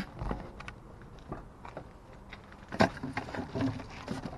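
Items being rummaged through and handled in a dumpster: scattered light clicks and knocks, with one sharper knock a little under three seconds in.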